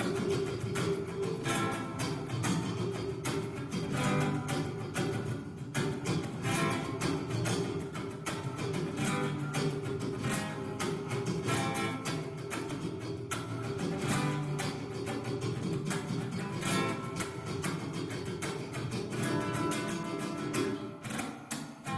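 Song played on a strummed acoustic guitar, with a steady, quick rhythm of strokes.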